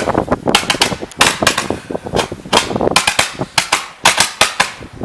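Consumer fireworks going off: a rapid, irregular string of sharp bangs and cracks, about three or four a second.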